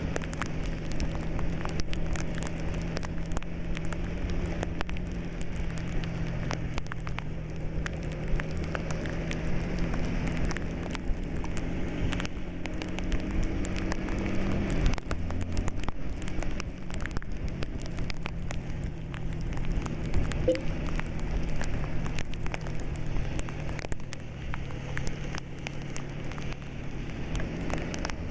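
Bus engine droning inside the cab while driving. Its note rises steadily, then drops suddenly about halfway through. A constant light crackling patter runs over it.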